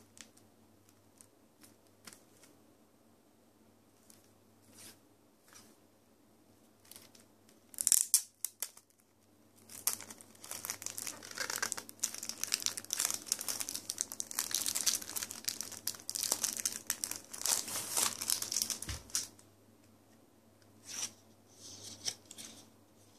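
Plastic shrink-wrap torn open on a CD jewel case: a sharp rip about eight seconds in, then about nine seconds of loud, continuous crinkling as the wrap is pulled off. Light clicks of the handled plastic case come before and after.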